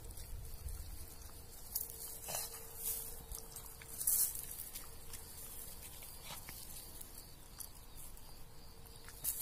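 Light crackling and rustling of dry grass stems brushing close to the microphone, in short irregular ticks, with a faint steady hum underneath from about two seconds in until near the end.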